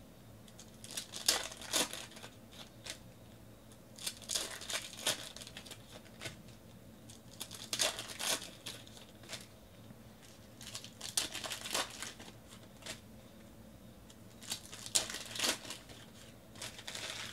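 Foil trading-card pack wrappers being torn open and crinkled by hand, in clusters of crackling rustles every three or four seconds.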